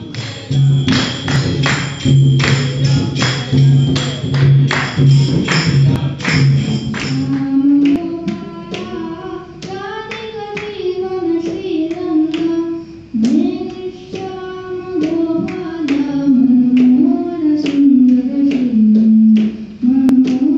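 Music. It opens with about seven seconds of a piece with a steady drone and an even beat. Then a child's voice sings a melody through a microphone, with sharp taps now and then.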